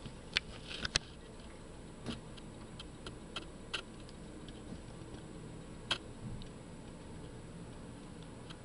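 Scattered small clicks and ticks at irregular intervals over faint steady hiss, a few close together in the first second and the sharpest one about six seconds in.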